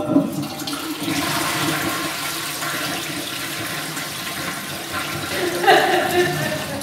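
Toilet flushing: a loud rush of water that starts suddenly and keeps running steadily.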